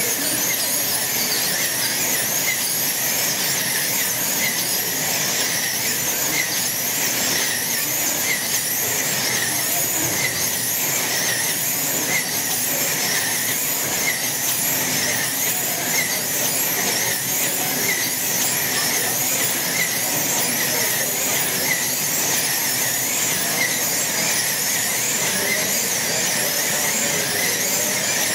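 Several wing-class slot cars racing flat out on a large multi-lane track, their small electric motors giving a loud high-pitched whine that swoops up and down again and again as the cars accelerate down the straights and brake into the turns.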